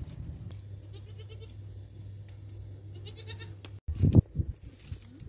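An animal calling twice, with a pulsing call, over a steady low hum; a loud low knock comes about four seconds in.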